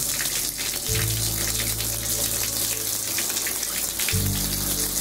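Water spraying steadily from an old hand-held shower head at full pressure, its worn rubber insert removed. Background music with held low notes plays underneath.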